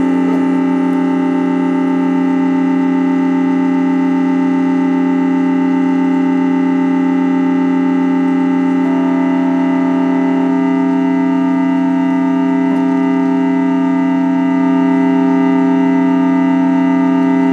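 Small portable keyboard organ playing sustained drone chords, notes held steady with no attack or decay. The chord shifts twice around the middle.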